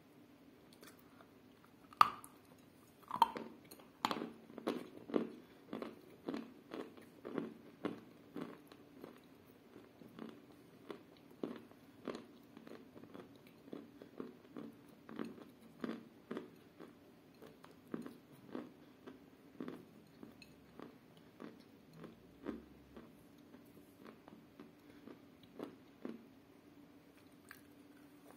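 Chalk coated in clay paste being eaten: two loud crunching bites about two and three seconds in, then steady chewing with soft crunching clicks about one or two a second, thinning out towards the end.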